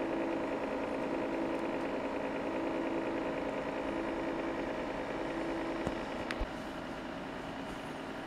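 Steady hum of cooling fans on an electronics test bench, with a low pitched drone in it. The drone stops about six and a half seconds in, just after a couple of small clicks, and a softer hum carries on.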